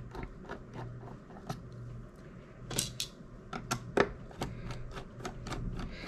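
Phillips screwdriver backing screws out of an aluminium case: a quick run of small clicks, about four a second, with a couple of louder knocks about three and four seconds in.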